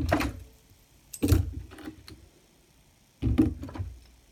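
Steel lock picks and locks being handled: sharp metallic clicks and light rattles, each with a dull thump, in three short clusters (at the start, about a second in, and near the end).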